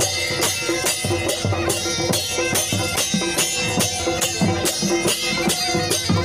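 Uttarakhandi folk music for a dhol-damau dance: a fast, even drum beat under long held melody notes.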